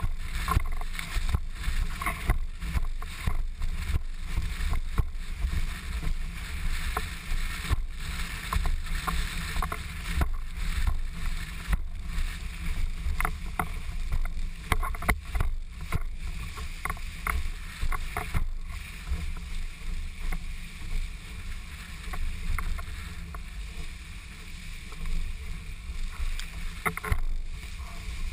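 Windsurfer under sail through choppy surf: wind buffeting the boom-mounted camera in an uneven low rumble, with water splashing and chop slapping the board in irregular knocks.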